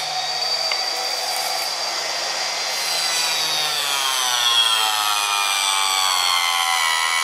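Harbor Freight Mighty Mite 4-inch table saw, its small universal brushed motor whining as the carbide-tipped blade cuts into a 3/8-inch mahogany strip. From about halfway the whine falls slowly in pitch as the weak motor slows under the load.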